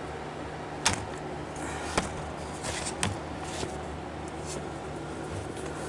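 Several sharp clicks and light knocks of hand work on metal parts close to the microphone, the loudest three about a second apart, over a steady low hum.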